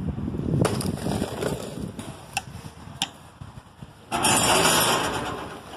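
A few sharp knocks, then a Maxon truck liftgate's hydraulic pump motor starts abruptly about four seconds in and runs loudly for about a second and a half before stopping.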